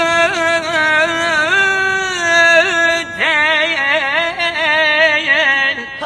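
A young man singing a long wordless melismatic phrase in Iraqi Arabic style, holding vowels with quick trilling ornaments. About three seconds in he jumps to a higher note with a fast wavering vibrato.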